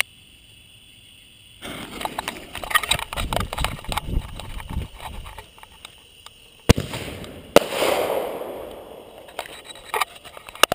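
Consumer artillery shell firework from a BIG Artillery 12 Pack, fired from its mortar tube. A few seconds of irregular crackling and sputtering come first, then two sharp bangs about a second apart, the lift charge launching the shell and then the shell breaking overhead. The second bang trails off into crackle and rumble, and a few small pops follow near the end.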